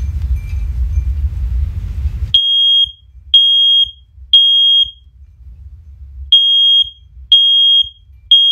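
First Alert OneLink hardwired smoke alarm (a first-generation unit) sounding its test in the three-beep temporal pattern, the standard evacuation signal: three steady, piercing beeps, a pause, then three more. A low rumbling noise runs for the first two seconds, before the beeps start.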